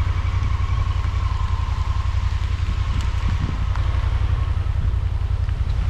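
Honda Pioneer 1000-5 side-by-side's engine idling steadily after a hill climb, with a faint steady whine above the low rumble.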